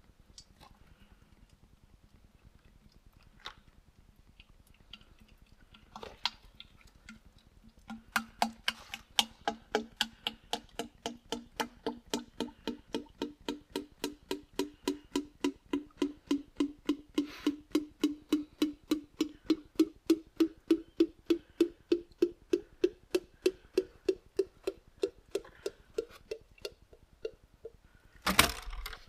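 Fluid glugging out of a jug's spout as it is poured: a steady run of short pitched glugs, about two or three a second, slowly rising in pitch, starting about eight seconds in. A loud clatter follows near the end.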